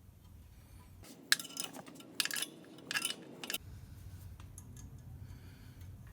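Several sharp metallic clinks and clicks of metal fittings and a hand tool being handled, clustered between about one and three and a half seconds in, over a faint low hum.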